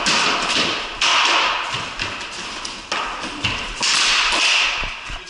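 Ball hockey played on a concrete floor: sticks and ball give sharp taps and thuds. Between them come several bursts of hissing noise, each about a second long.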